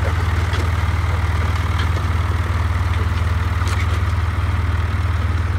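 John Deere 2555 tractor's diesel engine running steadily under load as it pulls a disc harrow.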